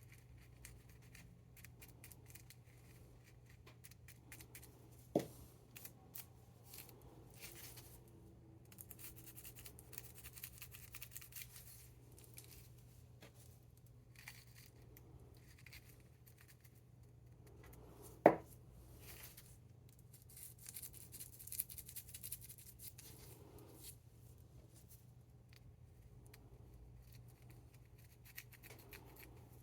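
Hands rolling a joint: faint rustling, crinkling and scratching of rolling paper and herb, over a faint steady low hum. Two sharp taps stand out, about five seconds in and again about eighteen seconds in.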